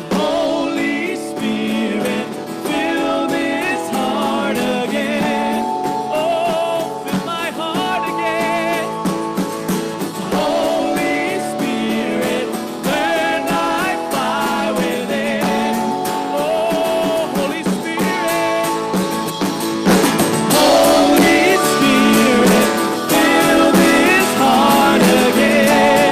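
Live worship band playing a slow song led by acoustic guitar, with voices singing held, wavering lines over sustained chords. The band swells louder about twenty seconds in.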